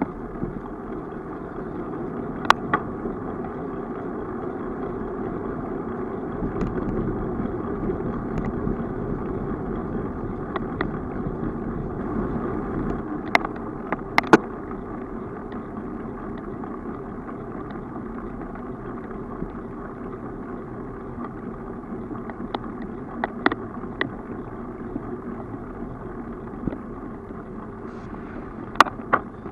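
Steady road and wind noise from a bicycle rolling along asphalt, with a handful of sharp clicks scattered through it.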